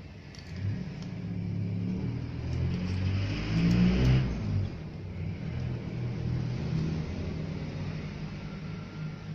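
A motor vehicle engine running, growing louder to a peak about four seconds in and then easing off.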